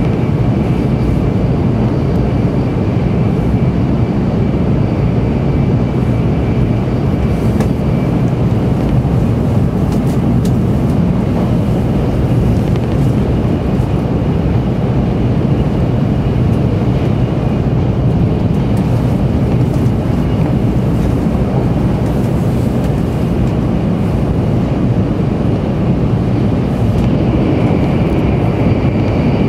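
Steady rumble and rush of a 700 Series Shinkansen running at speed, heard inside the passenger cabin, with a faint high whine near the start and again near the end.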